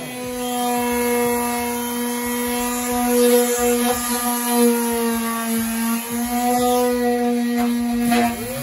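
Handheld electric sander running at a steady speed, a constant motor whine, as it sands the chrome bumper of a GMC Sierra pickup to prepare it for primer and paint.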